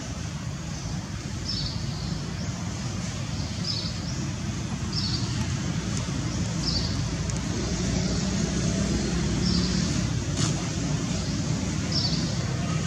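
Outdoor ambience: a steady low rumble with a short high chirp repeating every one to two seconds.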